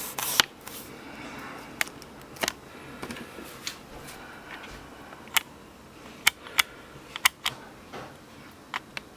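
Irregular light clicks and taps, about a dozen over several seconds, from fingers handling and tapping an iPhone running the GoPro app.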